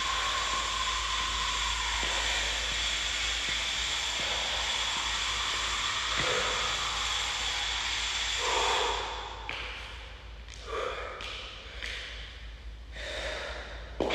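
Steady hiss with a faint whine, from the wall exhaust fan, for about the first eight seconds. Then the hiss drops and a man breathes hard in several short snorts and exhales close to the microphone.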